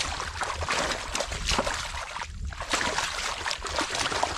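Hands splashing and churning shallow muddy water in quick, irregular splashes while grabbing for fish in the mud.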